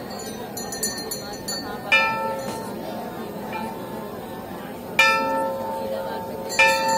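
A metal bell struck three times, each strike ringing out and fading, with a faint jingle of small bells early on and a crowd talking underneath.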